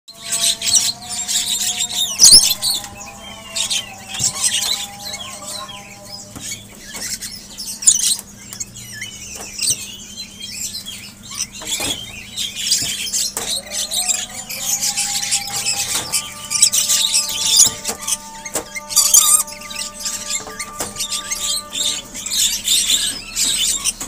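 Several caged rainbow lorikeets screeching in repeated shrill bursts, over a steady low hum.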